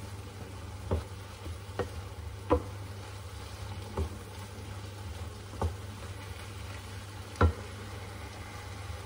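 Minced meat with onions and olives sizzling in a frying pan while a wooden spatula stirs it, knocking against the pan six times at uneven intervals, over a steady low hum.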